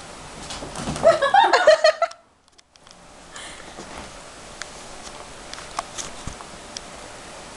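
A burst of high-pitched vocal sound, broken into quick syllables, lasting about a second and a half, then the sound drops out briefly. Afterwards only faint room noise with a few light taps.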